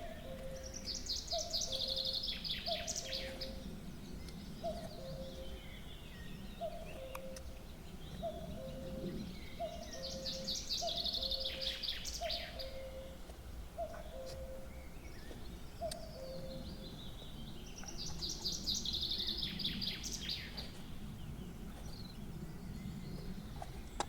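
Nightingale singing, three song phrases of rapid repeated notes about eight seconds apart. Beneath it a second bird repeats a low two-note call about once a second, which stops about two-thirds of the way through.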